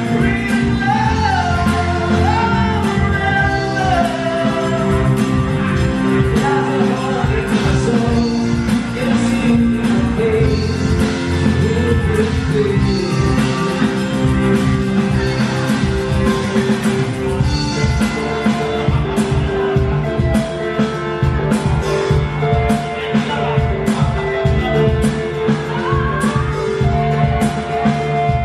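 A live band playing a song: sung vocals over guitars and keyboard. A steady tapping beat comes through more clearly in the second half.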